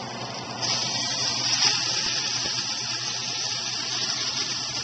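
Chicken pieces sizzling as they go into a pot of hot oil with onions and garlic; the sizzle swells about half a second in and then runs on steadily.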